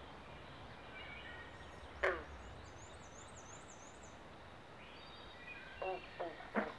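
Carpenter frogs and green frogs calling in mating season: one loud call about two seconds in and a quick run of three or four calls near the end, each dropping in pitch. Birds sing faintly in the background.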